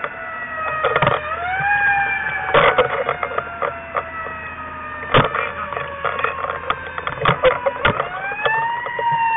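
Fire apparatus siren heard from inside the cab, winding up about a second in, sliding slowly down in pitch for several seconds, then winding up again near the end. Irregular knocks and rattles from the cab sound throughout.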